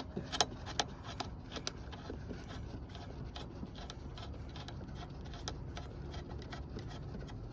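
Clicks and rubbing of small parts being handled as a new windshield washer nozzle is fitted, with several sharper clicks about every half second in the first two seconds, then faint ticking.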